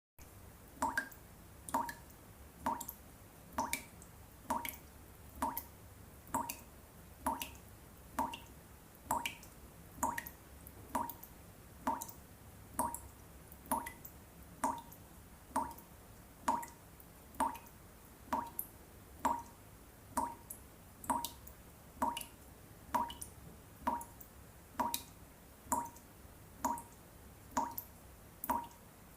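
Tap dripping steadily into water, one drop about every second, each drop the same short plink.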